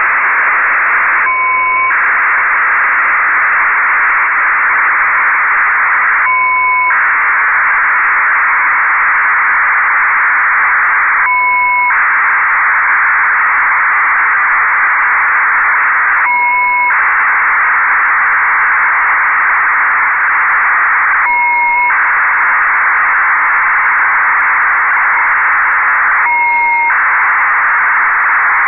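Nayif-1 satellite's 1200 bps BPSK telemetry downlink heard through an amateur radio receiver in USB: a loud, steady rushing data signal. About every five seconds it breaks for half a second into two steady tones.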